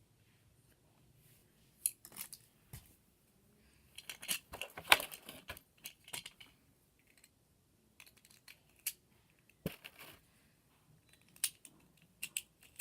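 Small hard plastic Beyblade parts clicking, snapping and rattling as the top is assembled, with a busier spell of handling and rustling a few seconds in.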